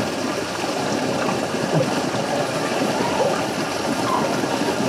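Creek water flowing, a steady even rush of running water.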